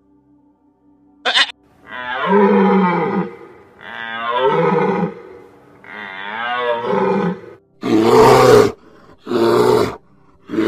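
A brief goat bleat near the start, then three long deer calls, each wavering up and down in pitch. About eight seconds in come three short, loud bear calls.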